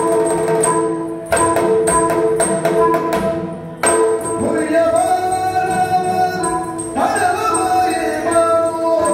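Yakshagana music: strokes on a maddale barrel drum with small cymbals over a steady drone. A singer's voice comes in about four and a half seconds in.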